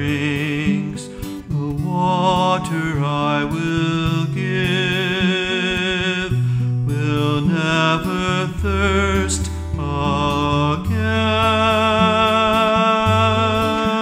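A man singing a slow song with a wavering vibrato, accompanying himself on a steel-string acoustic guitar whose low bass notes ring under the voice.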